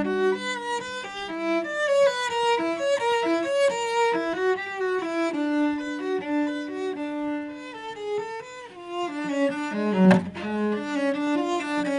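Cello playing a moving melodic line over a held lower note, with a sharp accented stroke about ten seconds in.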